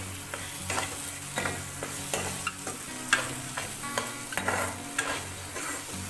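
Metal spatula scraping and stirring onion-tomato masala in a frying pan, with repeated scrapes about two a second over a steady sizzle of the masala frying in oil.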